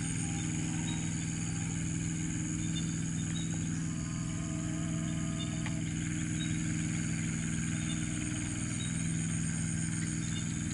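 An engine runs steadily in a low, even hum, with a constant high-pitched drone above it.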